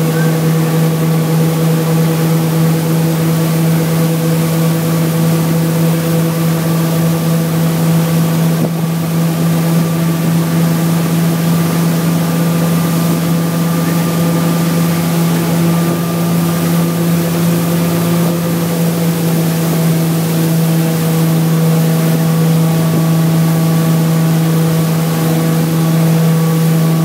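Motorboat engine running steadily at speed, under the load of towing an inflatable tube, heard from aboard. Its steady hum is laid over the rush of the wake and spray behind the boat.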